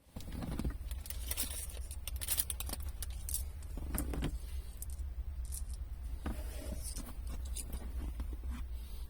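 A steady low rumble with repeated light clicks and jingling rattles over it, like keys or small parts being handled.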